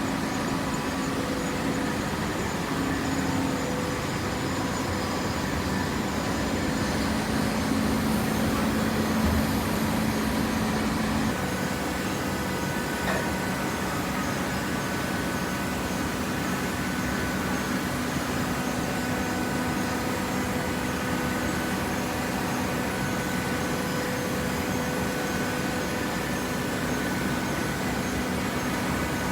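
Hydraulic paper baler running: a steady machine hum of motor and pump, with several steady tones over a noisy wash. About eleven seconds in, a low tone drops out and the running settles slightly quieter.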